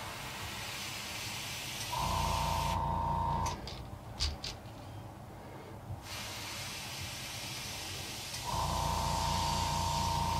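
Airbrush spraying paint with a steady hiss, stopping for a few seconds in the middle with a few light clicks, then spraying again. Twice a small air compressor's motor comes on with a low hum and a steady whine for one to two seconds.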